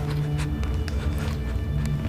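Dark, tense background music: a low sustained drone with a few sharp clicks scattered through it.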